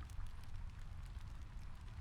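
Soft rain on a window mixed with a crackling fireplace: a steady low rumble and hiss, dotted with frequent small crackles and pops.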